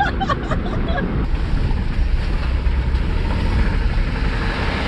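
1998 Chevy Blazer's worn 4.3 Vortec V6 running hard under throttle, heard from inside the cab with steady road and wind noise. The engine has the typical 4.3 Vortec knock and is making little oil pressure.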